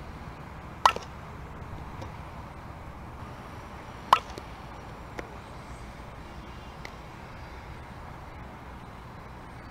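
A bat hitting a softball for infield ground-ball practice: two sharp, ringing hits about three seconds apart, over a steady low outdoor background.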